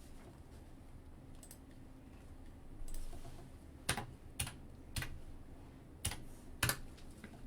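Typing on a computer keyboard: a handful of separate key clicks, most of them in the second half, spaced about half a second apart.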